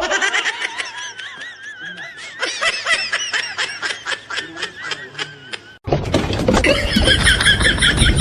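Laughter with a wavering, pulsing pitch. About six seconds in it cuts abruptly to louder music.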